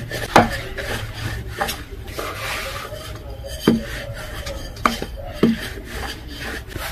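Small wooden rolling pin rolling out chapati dough on a floured board: repeated rubbing strokes broken by about five sharp wooden knocks.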